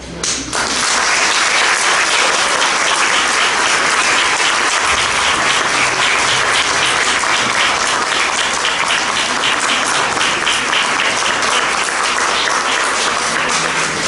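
Audience applauding, breaking out about half a second in and going on steadily with many hands clapping.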